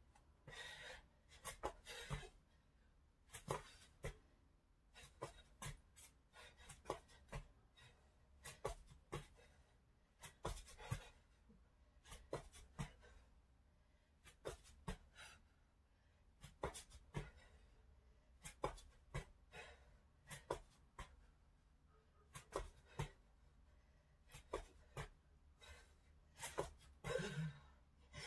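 Bare feet landing on an exercise mat during plank jacks: light taps that come irregularly, about once or twice a second, with the exerciser breathing between them.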